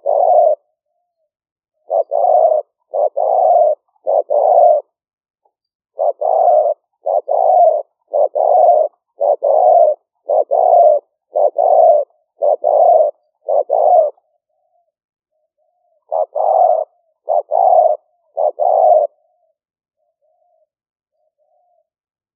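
Spotted dove cooing in runs of short, evenly spaced notes, roughly one a second, with pauses between runs. A few faint notes come near the end. This is the kind of decoy dove call played to lure wild doves.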